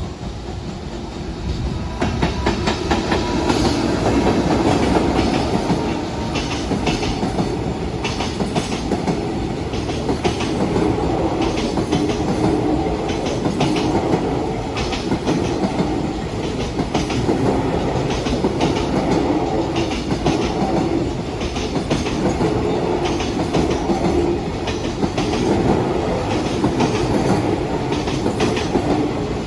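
A long container freight train passing at speed. Its wagon wheels clack steadily over the rail joints, swelling about two seconds in.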